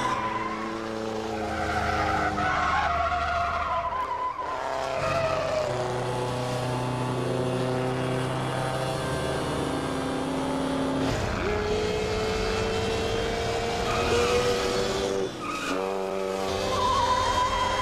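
Vintage racing car engines running hard at speed, the engine note shifting from shot to shot and climbing steadily for several seconds past the middle. Tyres hiss through standing water on a wet road.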